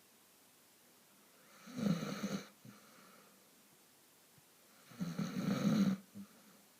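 A sleeper snoring heavily: two long snores about three seconds apart, each lasting about a second.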